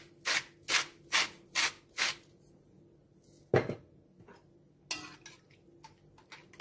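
Stainless-steel salt grinder twisted by hand, a gritty grinding stroke about twice a second, five strokes. Then a single knock, and a metal spoon clinking and scraping lightly against a ceramic bowl as it stirs the liquid.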